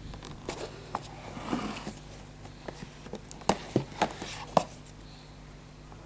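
A small cardboard blind box being handled and prised at by hand: a soft rustle about one and a half seconds in, then a cluster of sharp clicks and taps.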